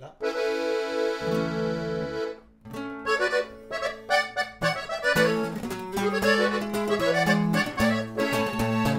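Hohner button accordion and a twelve-string guitar playing a norteño tune live. The accordion opens with a long held chord, with bass notes under it partway through. About two and a half seconds in, the guitar joins with quick plucked notes and both play the melody together.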